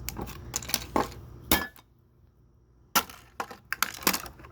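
Hard plastic and small parts of a broken alarm clock clicking, clinking and clattering as it is pulled and knocked apart: a run of sharp knocks, a pause of about a second near the middle, then another run of knocks.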